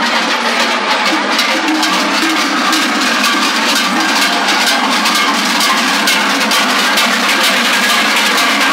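Many large cencerros, long cowbells strapped to the backs of costumed dancers, clanging all together without pause in a dense, steady clatter of overlapping strokes.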